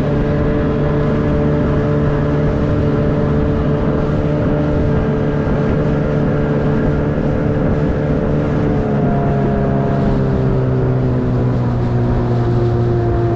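A small motorboat's engine running steadily as the boat cruises. Its pitch eases down slightly in the second half.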